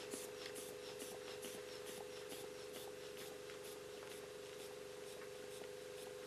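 Manual blood-pressure cuff being worked by its rubber hand bulb: soft, even airy puffs about twice a second that fade out after about three and a half seconds, over a steady low hum.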